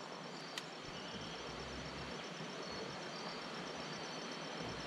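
Steady rushing of river water, with insects trilling at a high pitch over it. A single sharp click about half a second in.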